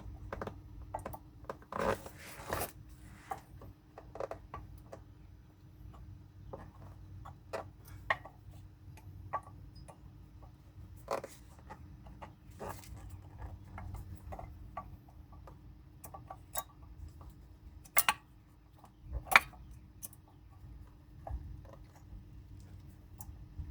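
Scattered light clicks and clinks of brake pads being set into the caliper bracket's retainer clips and slid to check their fit, with two louder sharp knocks about three-quarters of the way through, over a faint steady hum.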